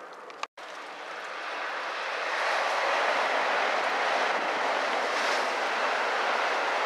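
Tokaido Shinkansen bullet train running past at speed: a rushing noise of wind and wheels on rail that swells over a couple of seconds and then holds steady. The sound drops out for an instant about half a second in.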